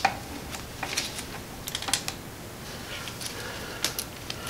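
Light, irregular clicking of a socket ratchet backing out a motorcycle's transmission oil drain bolt.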